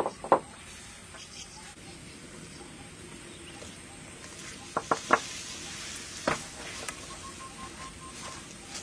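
Food frying in oil in a steel wok, a faint steady sizzle, while a wooden spatula stirs and knocks against the wok: a sharp knock near the start, three quick knocks about five seconds in and another a second later.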